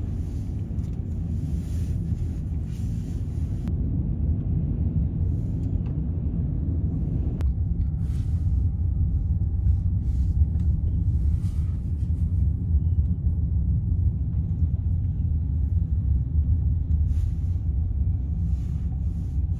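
Steady low road rumble of a vehicle driving.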